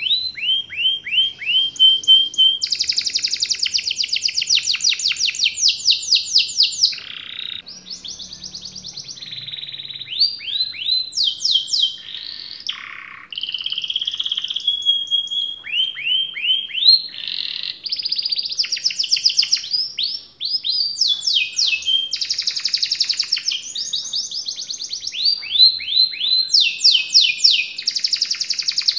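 Domestic canary singing a long, continuous song of fast rolling trills alternating with series of quick falling whistled notes, with brief breaks between phrases.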